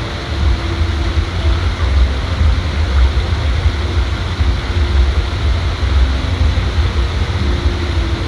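Outdoor ambience: a steady rushing noise with a heavy, fluttering low rumble of wind on the microphone.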